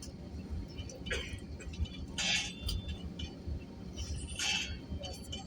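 Airliner cabin rumble, a steady low drone from the plane as it taxis, with light clinks and rattles three or four times.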